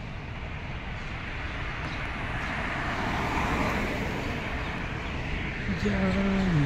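Road traffic noise from cars running along a city road, swelling as a vehicle passes about halfway through. Near the end comes a brief pitched tone that drops in pitch as it stops.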